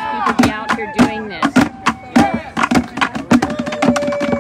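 Protest drums beaten with sticks in a steady beat, about two strikes a second, with voices chanting over it; the drumming gets faster near the end.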